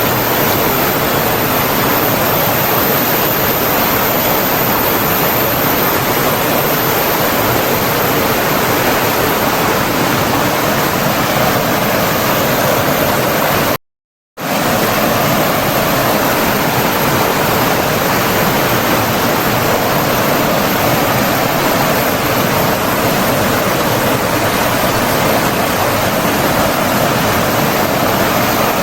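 Steady rushing of flowing water, as of a stream or small waterfall, an even, unbroken wash. It cuts out to silence for about half a second midway, then resumes unchanged.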